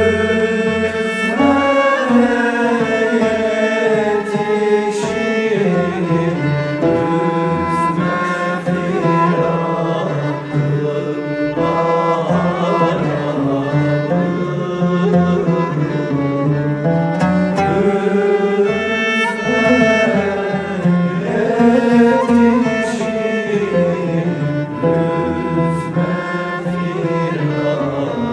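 A choir singing a slow, ornamented melody with bowed string instruments accompanying.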